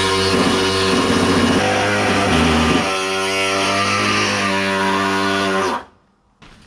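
Background guitar music: held chords that change every second or so, cutting off abruptly near the end.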